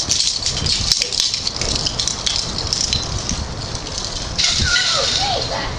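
A metal fence rattling and clattering as a person climbs it, with many sharp clicks. About four and a half seconds in it gets louder, with a few short squeaks that glide up and down.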